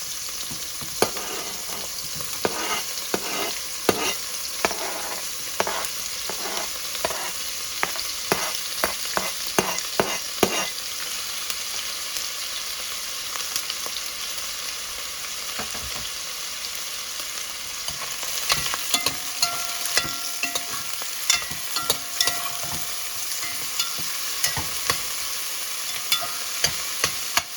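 Shrimp sizzling steadily as they fry in hot oil in a pan. A utensil clicks and knocks against the pan in quick runs through the first ten seconds or so, and again over the last ten.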